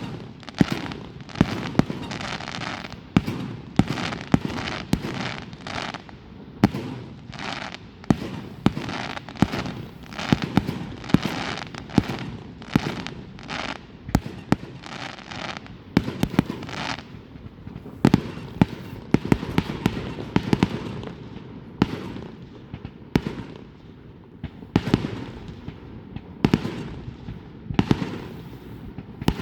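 Fireworks going off without a break: a continuous run of sharp bangs, often several close together, with crackling between them.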